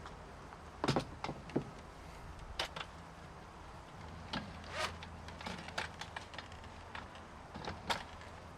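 A handful of sharp, irregular knocks and clicks, the loudest about a second in, over a low steady hum.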